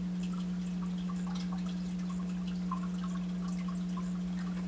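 Steady low hum, with faint scattered ticks and clicks from plastic bottles being handled.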